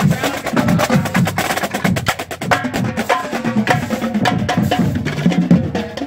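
Marching band drumline playing a fast rhythmic cadence of sharp stick and rim clicks with drum hits.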